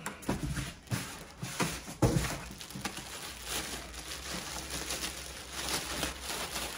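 Clear plastic packaging bag rustling and crinkling as it is pulled off an electric unicycle, in irregular bursts, with one sharp thump about two seconds in.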